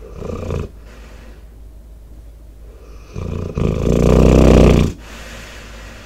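An American Staffordshire Terrier/pit bull snoring close to the microphone: a short snore right at the start, then a long, loud, rattling snore about three seconds in that lasts nearly two seconds.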